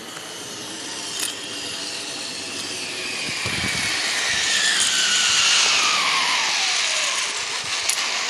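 Zip-line trolley pulleys running along the steel cable as a rider comes in: a metallic whir that grows louder to a peak about five seconds in, with a whine that falls steadily in pitch.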